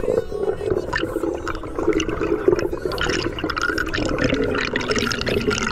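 Water rushing and bubbling around a submerged camera, a continuous noisy churn with crackles.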